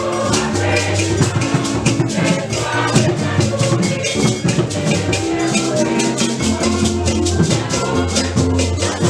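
Music with a steady beat: a fast, continuous rattling percussion pattern over held bass notes.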